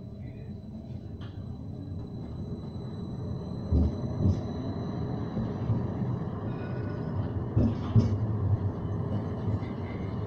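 Edinburgh tram (CAF Urbos 3) running and gathering speed, heard from inside: a steady low rumble of wheels on rail that grows louder throughout, with a few short thuds about four and eight seconds in.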